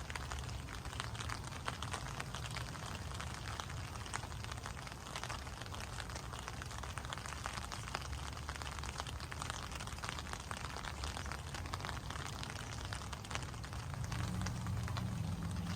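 Steady rain falling, many drops pattering on surfaces, over a low rumble that grows louder near the end.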